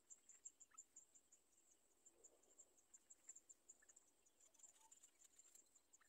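Faint, fast, even insect chirping, high-pitched, about five chirps a second.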